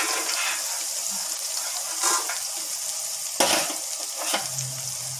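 Boneless mutton frying in oil in an iron kadai, sizzling steadily as it cooks in its own juices with no water added, with a few brief clatters of the pan or lid.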